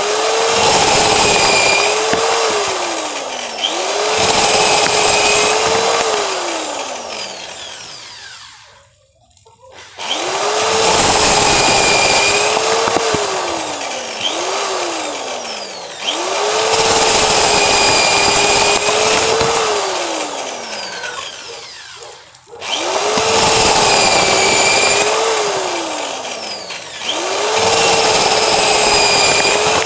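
Cordless drill-driver spinning corn cobs to shell the kernels, run in about six bursts: each time the motor spins up to a steady whine with a rattling, scraping noise of kernels coming off, then slows with a falling pitch as the trigger is released.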